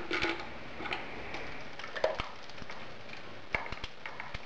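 Scattered light clicks and taps as cover bolts and hand tools are handled at a motorcycle engine's timing cover, with several separate sharp ticks spread through the few seconds.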